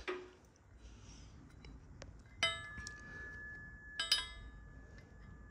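Steel engine-building parts clinking against metal: a light tap, then two sharp clinks about a second and a half apart, each ringing on with a clear bell-like tone.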